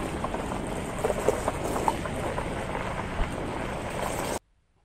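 Wind buffeting the microphone in a steady rumble, with a few faint clicks, cutting off suddenly near the end.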